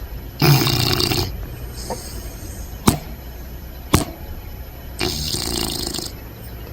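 English bulldog puppy snoring in his sleep: two loud, rough snores about four and a half seconds apart, each lasting about a second. Two sharp clicks come between them.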